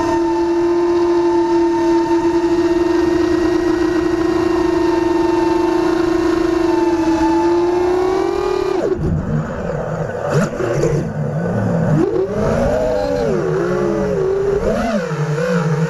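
FPV quadcopter's motors and propellers whining at a steady pitch for about eight seconds. The pitch then drops suddenly and rises and falls quickly, again and again, as the throttle is worked.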